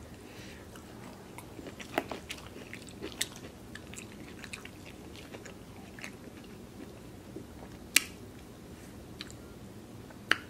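A person chewing and biting food close to the microphone, mouth sounds with scattered small clicks and a few sharper clicks, the sharpest about eight seconds in.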